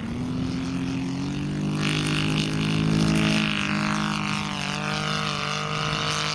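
Saito FG90R3 three-cylinder four-stroke radial petrol engine of a large scale model aircraft running at full throttle through the takeoff and climb-out, with propeller noise. It is loudest about three seconds in as the plane lifts off, and its pitch dips slightly as it climbs away.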